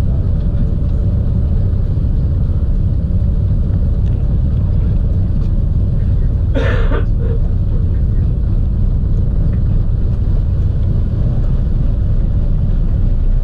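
A DC-3's radial engine running steadily after start-up, heard inside the cabin as a loud, even low rumble with its propeller turning. One short, sharper sound comes about halfway through.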